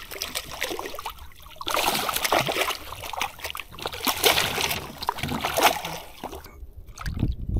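Hooked bluefish thrashing at the water's surface beside a small boat, throwing up splashes in several separate bursts.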